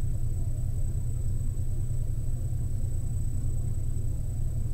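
Steady low rumble of background room noise, with a faint steady high-pitched whine above it.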